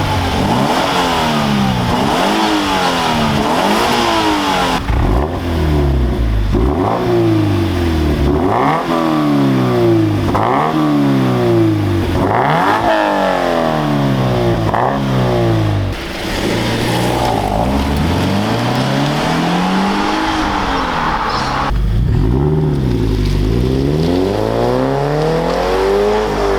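Toyota 86 GTS's 2.0-litre flat-four engine revved again and again through an X-Force catback with the muffler and resonator deleted, the pitch climbing and dropping back about a dozen times. The exhaust note is loud and raw.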